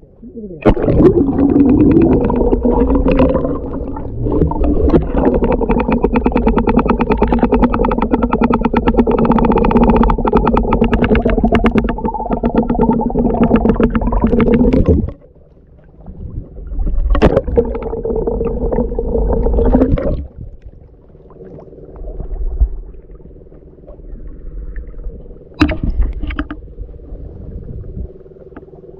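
Small boat engine's droning hum, muffled as heard with the camera underwater, with a fast pulsing beat. It is loud for about the first fifteen seconds, cuts out, returns for a few seconds, then sinks to a faint hum broken by a couple of sharp knocks.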